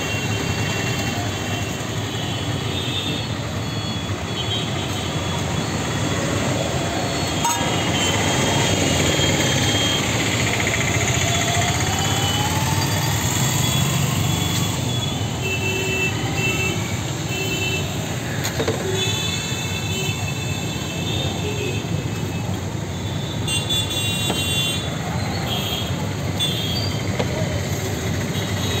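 Steady road traffic noise with vehicles passing and short horn toots now and then.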